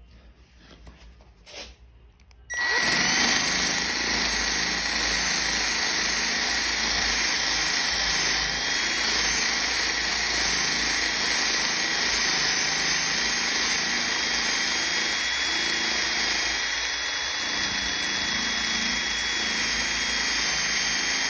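Power sander switched on about two and a half seconds in and running steadily with a hissing whine, sanding down drip marks in freshly cleared paint with fine-grit paper.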